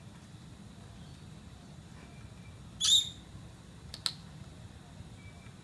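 A male Eclectus parrot gives one short, harsh squawk about three seconds in, followed about a second later by a sharp click.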